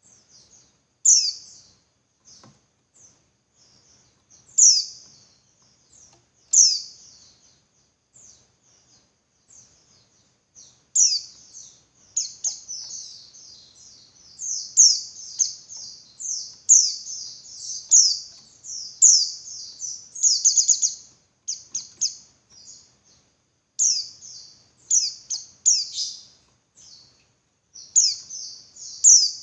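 Female white-eye (pleci) calling to males: thin, very high chirps with sharp downward sweeps, single notes a second or two apart at first, then quick runs of chirps from about halfway through.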